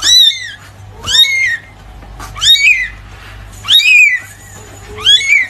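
Very young kitten meowing loudly: five high-pitched cries, each rising then falling, about a second and a quarter apart.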